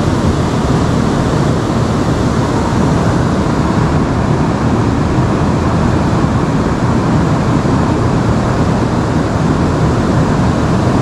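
Steady rushing of river water, an even, loud noise with no breaks or changes.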